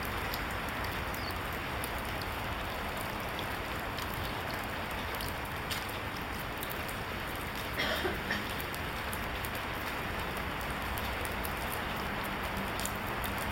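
A steady, even hiss with scattered faint ticks, and one brief louder sound about eight seconds in.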